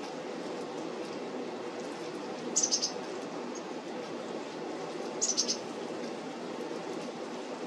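Black-capped chickadees calling: two quick runs of three or four short, high notes, about two and a half seconds apart, over a steady low rushing background noise.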